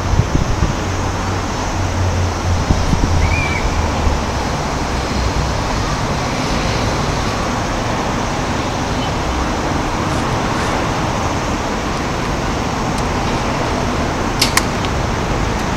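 Steady outdoor background noise, like traffic, with two sharp clicks close together near the end.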